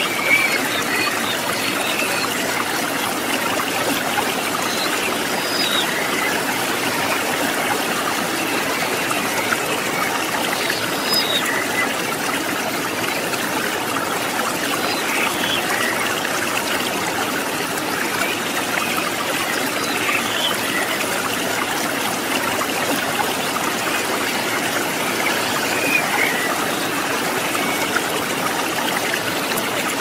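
A shallow rocky river flowing over and around boulders, a steady rushing and trickling of water.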